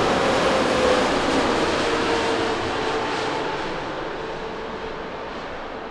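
Boeing 747-8F freighter's four GEnx turbofan engines passing low overhead on landing approach: a loud jet rumble that fades steadily from about halfway through as the aircraft moves away, with a faint tone sliding slightly lower in pitch.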